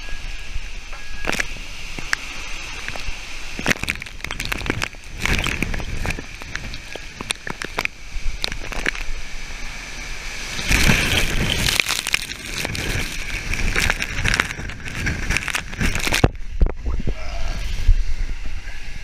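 Storm wind and driving rain lashing trees and a balcony, a steady rushing with rattling crackles and a stronger gust about ten seconds in. Near the end the sound suddenly turns muffled.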